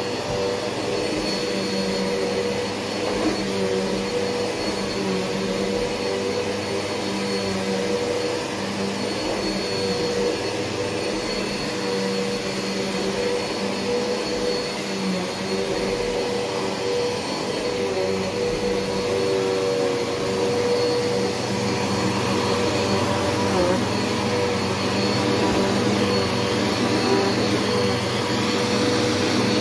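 Bissell PowerGlide upright vacuum cleaner running steadily on carpet, its motor giving a constant drone with a high whine, the sound shifting a little as it is pushed back and forth.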